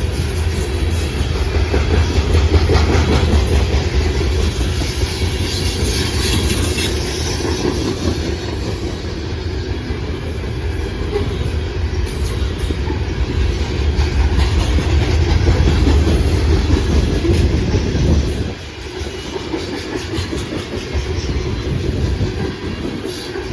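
Loaded coal train's cars rolling past, a steady loud rumble with wheels clicking over the rail joints; it eases off slightly near the end.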